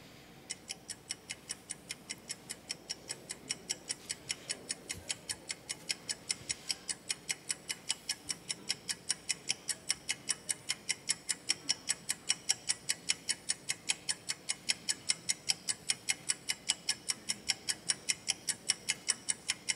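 Clock-ticking sound effect played over the hall's sound system to mark a twenty-second countdown: sharp, even ticks, a little over three a second, growing slowly louder.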